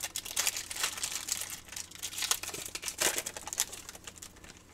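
A foil trading-card pack wrapper crinkling and crackling in the hands as it is twisted and torn open.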